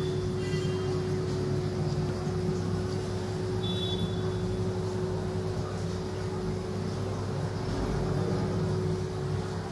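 Steady low hum and hiss of a marine aquarium's pumps and water circulation. A few short faint high tones sound about half a second in and again near 4 s.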